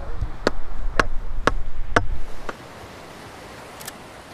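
Five sharp knocks in a row, about two a second, over a low rumble. After about two and a half seconds they give way to a steady hiss of surf and wind.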